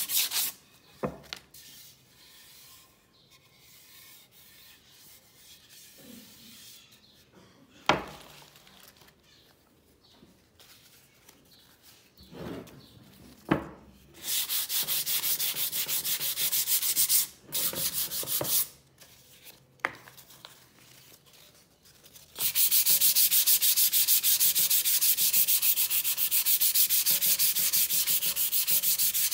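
Wood being hand-sanded with sandpaper on a block, in quick back-and-forth strokes. The sanding stops after about a second and leaves a quieter stretch with a few sharp knocks. It comes back in short spells from about halfway, then runs steadily and louder through the last seven seconds.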